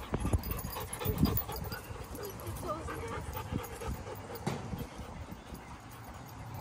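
Dogs panting and whimpering while they play, over a series of low thumps, the loudest near the start and about a second in.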